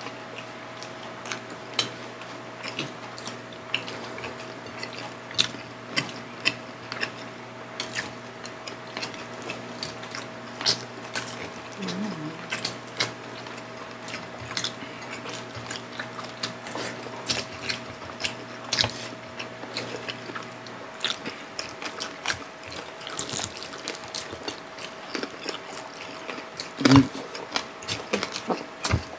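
Close-up eating sounds of two people eating fried milkfish and rice with their hands: scattered wet clicks and smacks of chewing and finger-licking, with fingers picking food off glass and ceramic plates, over a faint steady hum.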